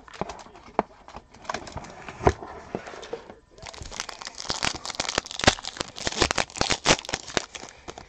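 A few light taps and clicks, then from about three and a half seconds in, a foil trading-card pack crinkling loudly as it is torn open and the cards are pulled out.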